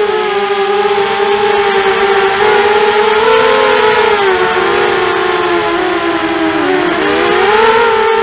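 ZMR250 FPV quadcopter's four Dragonfly 1806 2300kv brushless motors spinning 5x3 propellers, a steady buzzing whine with a hiss of air over it, heard from the onboard camera. The pitch wavers with the throttle, dipping and rising again near the end.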